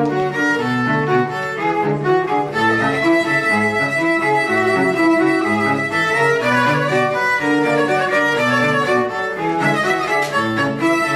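A quartet of four cellos playing together with the bow, several lines of notes moving at once without a break.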